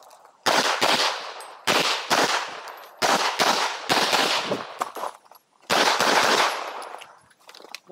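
Glock 43X 9mm pistol firing five loud shots at uneven intervals, each ringing out for most of a second.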